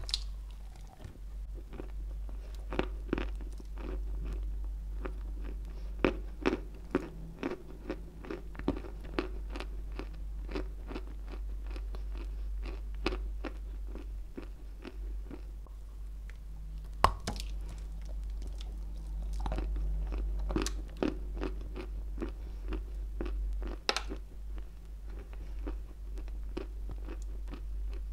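A lump of White Turkestan edible clay bitten off and chewed close to a clip-on microphone: a sharp crunch at the bite, then a steady run of dry crunching and clicking chews, with a couple of louder crunches later on.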